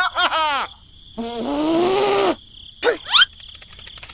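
A string of cartoon-style sound effects. First come several quick falling chirps, then a held pitched tone of about a second that rises and then falls, then two fast rising zips about three seconds in. A rapid run of ticking clicks follows near the end.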